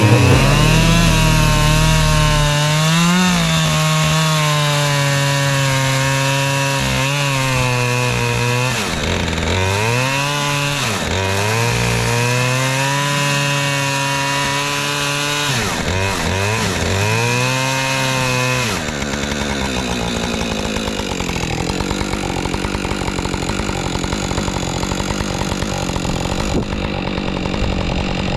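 Husqvarna two-stroke chainsaw running at high revs while cutting into a log, its pitch dipping briefly several times as the chain loads up in the wood. About two-thirds of the way through, the sound turns rougher and less tonal.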